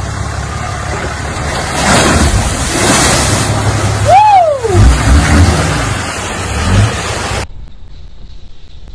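Off-road 4x4 engine under load and heavy water splashing as the truck drops into and ploughs through a muddy, water-filled trench. About four seconds in there is a short tone that rises and falls, followed by heavy low thumps. About seven and a half seconds in the sound cuts off suddenly to a much quieter low hum.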